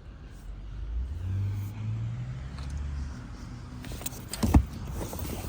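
A low vehicle engine hum that swells and fades, followed by a single sharp knock about four and a half seconds in.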